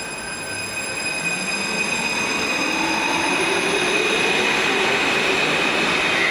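Alstom AS-02 metro train pulling out of the station and accelerating past, getting louder, with the whine of its traction motors rising in pitch over steady high-pitched running tones.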